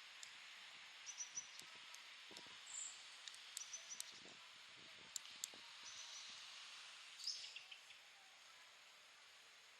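Faint outdoor park ambience: a steady hiss with small birds chirping a few times, one louder call about seven seconds in, and scattered light ticks of metal knitting needles.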